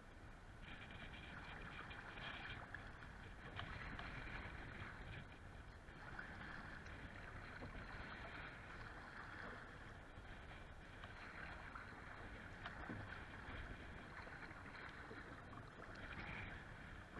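Choppy lake water splashing and slapping against a kayak's hull in repeated surges, with a low wind rumble on the microphone.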